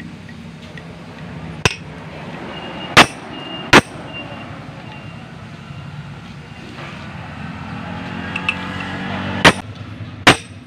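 Sharp metal-on-metal strikes of a hammer on a hand impact driver, driving screws on a Yamaha DT125 two-stroke engine: a lighter tap, then two hard blows about a second apart, and two more near the end.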